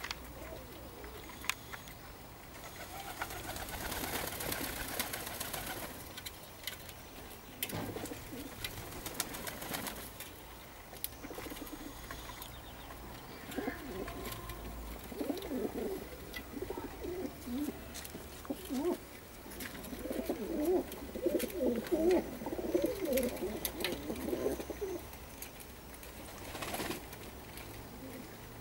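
Perm maned pigeons cooing over and over, the calls coming thickest and loudest in the second half, with a few sharp clicks in between.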